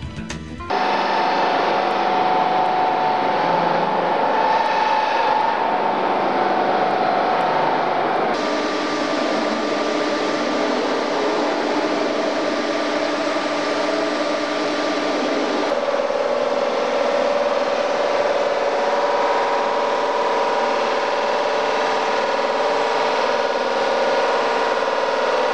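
Automatic polishing machine's buffing wheels running against a bent metal tube: a steady rushing rub with a machine whine. The whine's pitch shifts about 8 seconds in and again near 16 seconds.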